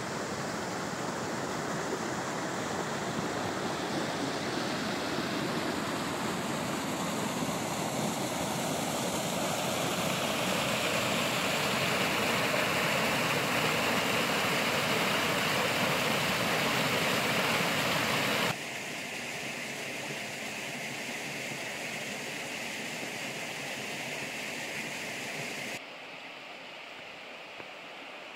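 River water rushing steadily, growing slightly louder, then dropping abruptly to a quieter rush about two-thirds of the way in and again near the end.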